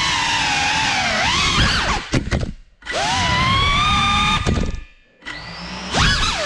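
FPV quadcopter's brushless motors and propellers whining, the pitch rising and falling with the throttle. The sound nearly stops twice, about two and a half seconds in and again about five seconds in, then comes back.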